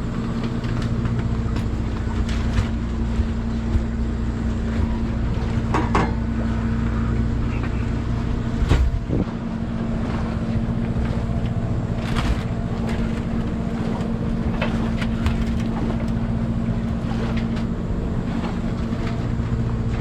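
Crab boat's engine running steadily, with scattered knocks and clanks as crab traps are handled and stacked on deck. The loudest knock comes about nine seconds in.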